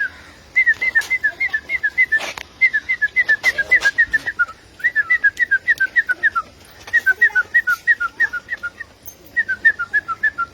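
Person whistling rapid short notes, about six or seven a second alternating between two pitches, in runs of one to two seconds with short pauses, the kind of whistle used to call a dog. A few sharp clicks fall between the runs.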